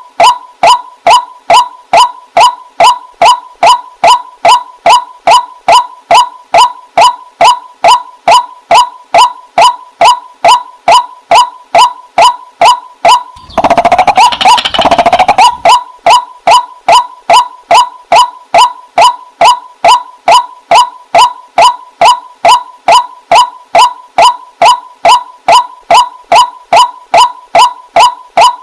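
Waterhen calling, a short hooked note repeated evenly at about two or three calls a second. Around the middle, a harsher and louder call lasts about two seconds before the even series resumes.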